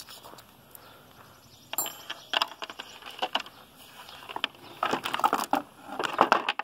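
Steel chainsaw chain rattling and clinking as it is taken off the bar and handled over a board, in scattered bursts of small metallic clicks. The bursts come thicker and louder past the middle and again near the end.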